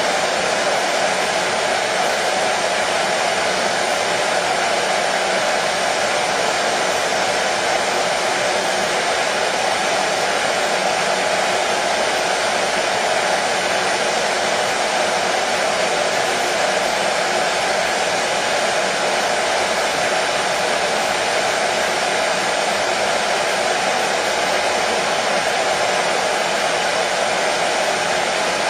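Electric hair dryer running steadily: a constant airy whoosh with a low hum, used as white noise to soothe a colicky baby.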